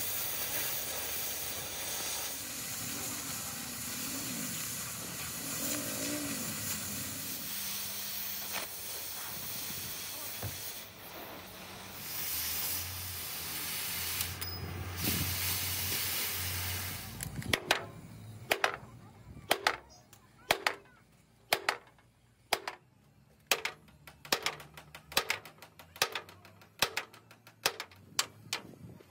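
A steady hiss for the first half or so, then a run of sharp hammer blows, roughly one to two a second, louder than the hiss.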